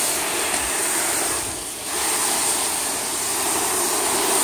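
Garden hose spray nozzle with a soap-dispenser attachment spraying soapy water onto a car's paint, a steady hiss that drops off briefly about a second and a half in.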